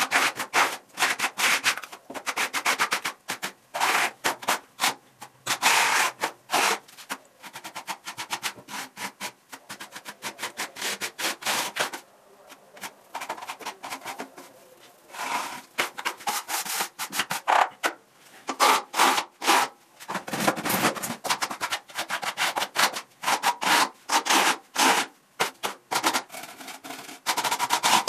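Steel plastering trowel scraping wet lime-based skim coat across a wall in quick, irregular strokes, with a quieter pause about halfway through.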